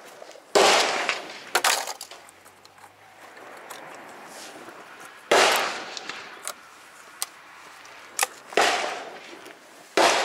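A series of loud, sharp bangs, each fading over about half a second: one about half a second in followed by quick clicks, then others about halfway, near the end, and right at the end.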